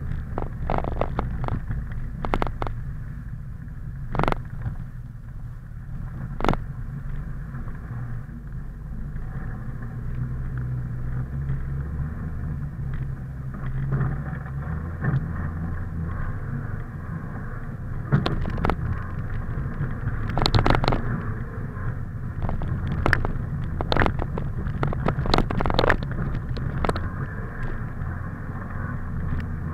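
A car engine running steadily at low revs, with scattered sharp knocks and rattles throughout, more of them in the second half.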